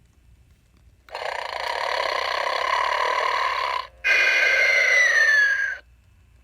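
Vintage snoring Santa toy giving a snore of about three seconds, then after a brief break a louder, shorter whistling snore that falls in pitch.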